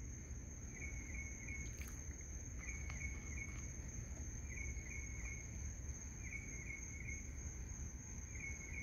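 Night insects calling: a steady high-pitched drone with short chirps repeating about once a second, over a low background rumble. A few faint clicks early on.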